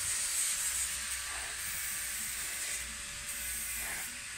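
Steady hiss from a noisy machine working some distance away, with a faint steady hum under it.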